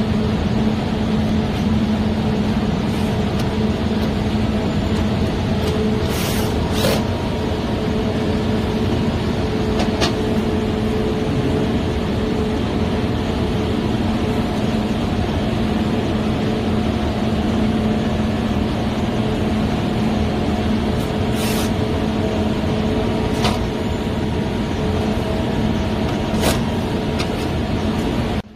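Steady machinery noise of an industrial plant with a constant low hum, broken by a few brief hisses and clicks.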